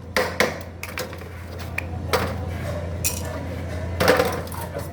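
Hammer tapping the edge of a sheet-metal air conditioning duct against a backing support to fold it over, several irregular metallic strikes over a steady low hum.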